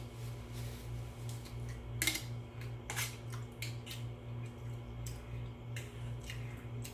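Eating utensils clicking and scraping against dishes in a few scattered sharp taps, the clearest about two and three seconds in, over a steady low hum.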